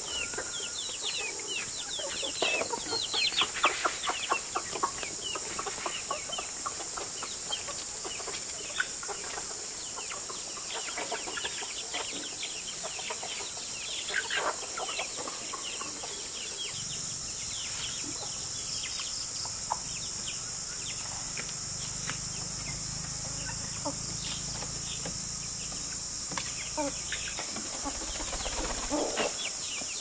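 A flock of free-range chickens clucking and chirping as they feed. The calls are short and many overlap, busiest in the first few seconds.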